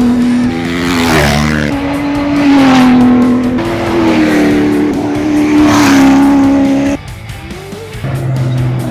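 Rally cars racing past at speed on a dirt road one after another, engines held at high revs, each pass swelling and fading with a slight drop in pitch. The sound cuts off sharply about seven seconds in, leaving a quieter low hum.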